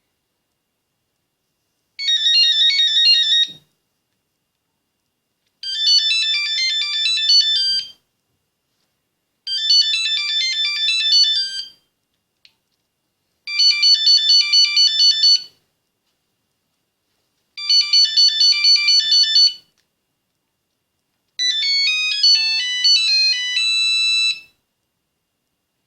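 Nokia 8110 mobile phone playing its ringtones one after another: six short beeping melodies, each two to three seconds long, with a pause of silence between them.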